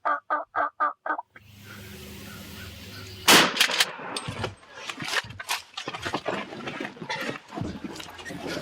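A run of about seven quick, evenly spaced turkey notes, then about three seconds in a single loud shotgun blast, followed by a string of knocks and rustles as the camera is kicked and jostled.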